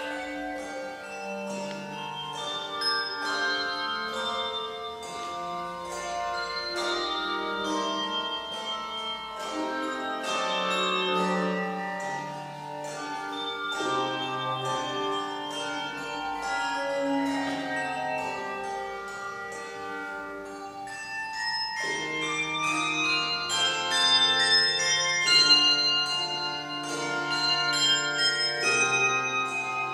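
A handbell choir ringing a piece: many English handbells sounding overlapping notes that ring on and decay, with deep bass bells joining in. The music grows louder about two-thirds of the way through.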